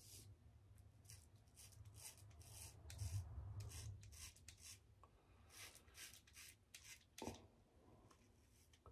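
Faint, short strokes of a GilletteLabs Heated Razor's cartridge blades scraping through lathered four-day stubble on the upper lip, one stroke after another with small gaps between.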